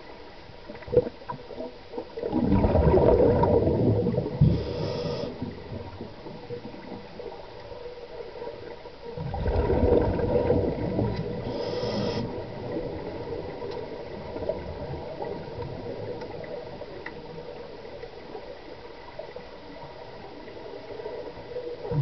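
Muffled water noise heard underwater in a swimming pool: two long surges of gurgling and rumbling, about two seconds in and again about nine seconds in, each lasting around three seconds, over a low steady murmur. A few sharp clicks come about a second in.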